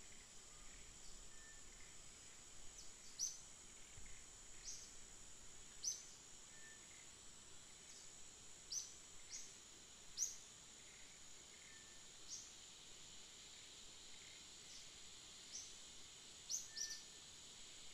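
Quiet tropical forest ambience: a steady high-pitched insect drone, with short sharp bird chirps every second or two and a few faint whistled notes.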